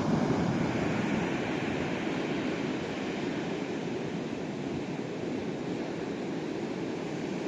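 Rough sea surf breaking on the shore, a steady wash of waves, a little louder in the first second or so.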